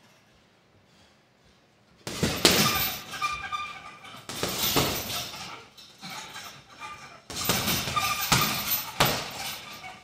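Gloved punches landing on a hanging heavy bag, each hit a sharp smack with the bag's chains rattling after it. Quiet for about the first two seconds, then three flurries of blows.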